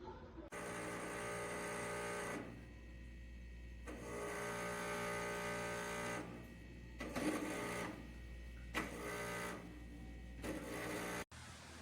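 Brio top-loading water cooler making a loud mechanical buzzing hum that comes and goes in stretches of one to two seconds; the noise is a fault of the unit that bracing it has not stopped. It cuts off suddenly near the end.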